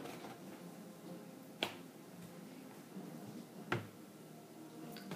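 A few sharp, short clicks or taps about two seconds apart, like small hard objects being knocked or set down.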